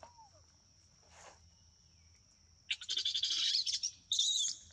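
Loud bursts of high-pitched chirping calls, the first starting about two and a half seconds in and a shorter one near the end, over a faint steady high tone.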